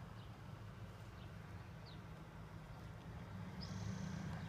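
Low, faint hum of a vehicle's engine as it comes slowly up the road, growing a little louder near the end, with a few short, faint bird chirps.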